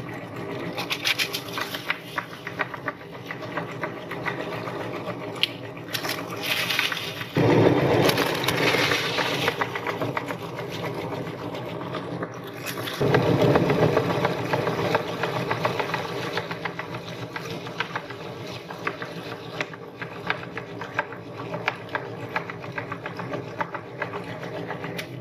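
Electric meat grinder running with a steady motor hum while it crushes crunchy cookies, with a dense crackling as the crumbs are forced through the cutting plate. The grinding grows louder about seven seconds in and again about thirteen seconds in.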